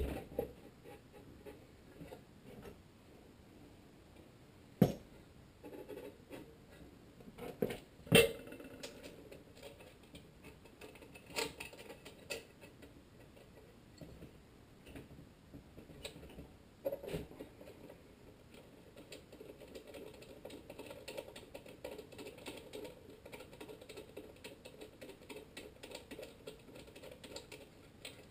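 Small metal clicks and clinks of engine parts being handled inside a Tecumseh HSK70's aluminium crankcase as the connecting rod cap is fitted back onto the crankshaft. A few sharp knocks stand out in the first half, and from about halfway on the sound turns into a quick, steady run of light ticking.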